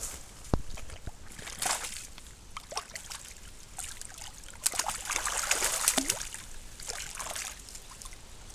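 Water splashing and sloshing as a net full of fish is emptied back into the lake, the splashing busiest and loudest for a few seconds around the middle.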